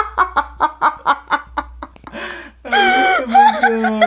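People laughing hard: a run of quick staccato laugh pulses, about five a second, that dies away about two seconds in, followed near the end by a long held vocal note.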